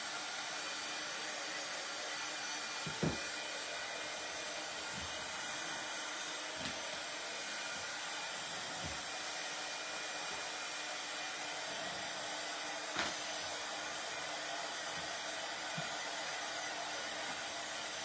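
Handheld electric craft dryer blowing steadily, with a few light knocks, the loudest about three seconds in and another near thirteen seconds.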